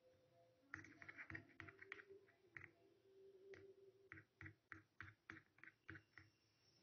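Faint, quick ticking and scraping, about four or five strokes a second, from a small spoon knocking against a clear plastic tub as it stirs thick flour-and-water paste to work out the lumps.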